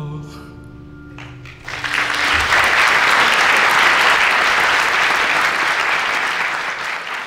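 The accompaniment's last held notes die away after the end of the cantorial song, then audience applause rises about two seconds in and holds steady.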